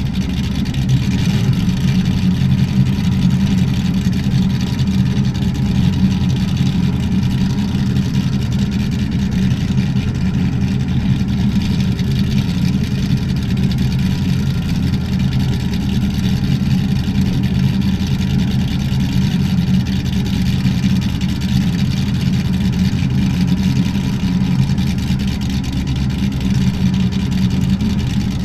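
Drag boat's exposed inboard engine running at a steady, unchanging speed while the boat is underway, kept easy during its break-in period.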